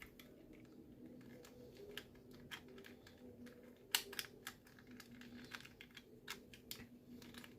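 Faint, irregular clicks and taps of plastic Mastermorphix puzzle pieces being handled and pressed into place, the sharpest about four seconds in, over a low steady hum.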